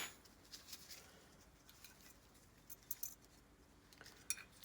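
Faint, scattered clicks and light ticks of a carburetor and small metal tools being handled, with a sharper click right at the start.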